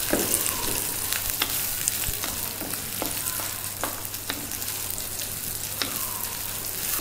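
Freshly added chopped onions and green chillies sizzling in hot oil in a clay pot, stirred with a wooden spatula that knocks and scrapes against the pot now and then.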